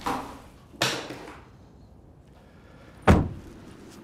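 Doors banging: a slam at the start and another just under a second in, each ringing briefly, then a heavier, deeper thud about three seconds in.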